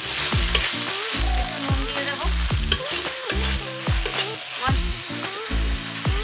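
Chopped tomatoes and spice paste sizzling in hot mustard oil in a kadai, with a spatula stirring and scraping against the pan in quick repeated strokes. Low, shifting tones run underneath throughout.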